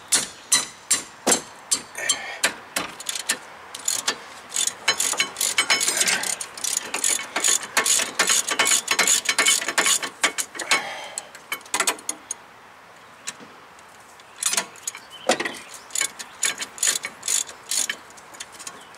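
Hand ratchet wrench clicking in quick runs of sharp clicks as the 17 mm rear caliper bracket bolts are worked loose, with a pause of a couple of seconds about two-thirds of the way through.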